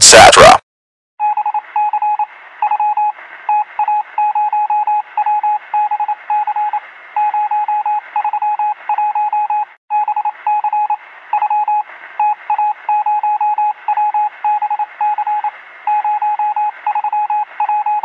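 An electronic beeping tone keying on and off in an irregular pattern of short and long beeps, over a steady hiss, with a thin, radio-like sound. It starts about a second in and keeps going.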